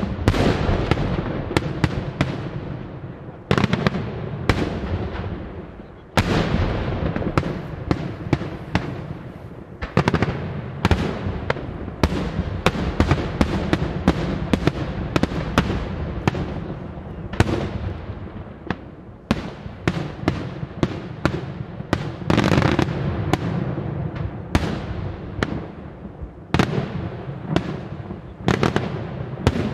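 Daytime aerial fireworks display: a dense barrage of shell bursts and bangs, several a second, with bigger reports every few seconds and an echoing rumble in between.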